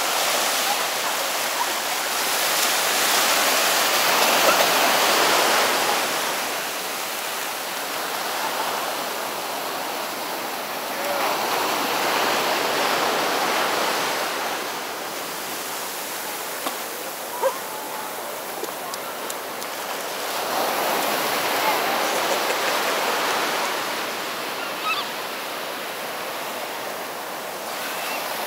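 Ocean surf breaking and washing up a sandy beach: a steady rush of water that swells and eases three times.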